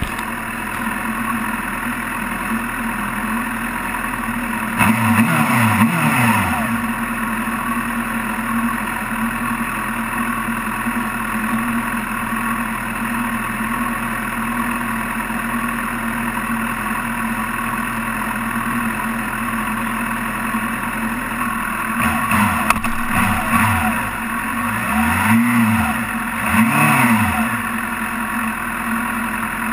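Suzuki sportbike engine idling at a standstill, with throttle blips whose pitch rises and falls: a couple about five seconds in and three or four more near the end.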